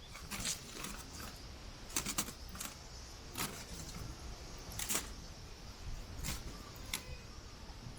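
Campfire crackling, with sharp wood pops every second or so at irregular intervals, over a low rumble of strong gusting wind on the microphone.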